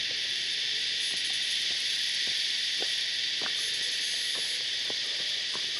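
Steady chorus of cicadas buzzing, with a few faint footsteps on a rocky dirt track.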